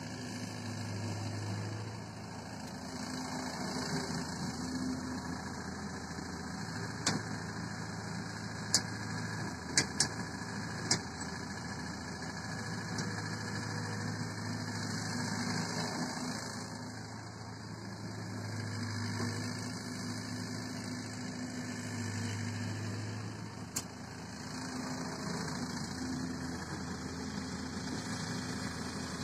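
A small Caterpillar excavator's diesel engine runs steadily, swelling and easing every few seconds as the machine digs and swings loads of mud. There are a few short sharp clicks or knocks, most in a cluster about a third of the way in and one more later.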